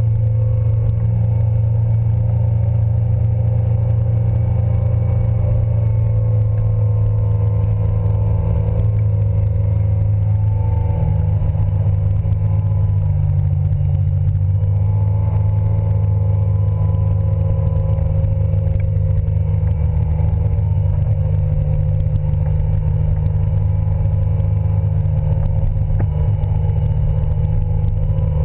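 Yamaha outboard motor running steadily at high speed, with water rushing in the wake. Its pitch dips slightly and recovers around the middle.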